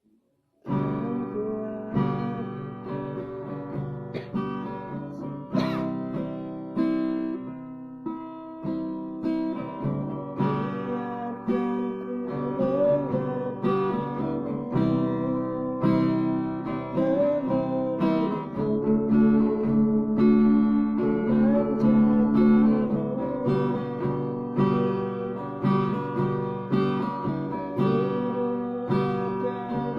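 Acoustic guitar being strummed and picked, starting about a second in.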